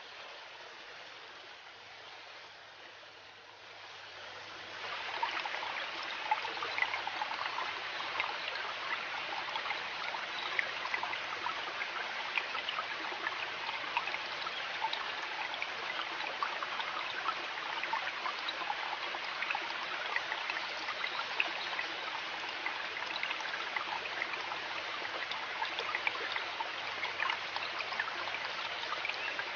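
River water babbling and trickling over stones, a steady rushing splash that grows markedly louder about four to five seconds in and then holds.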